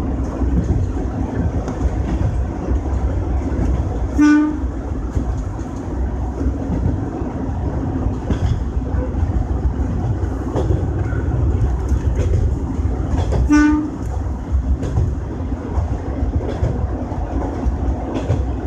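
Kanto Railway KiHa 310 diesel railcar running, heard from inside the cab: a steady low engine and rail rumble with the clack of wheels over rail joints. The train's horn gives two short toots, about four seconds in and again about thirteen and a half seconds in.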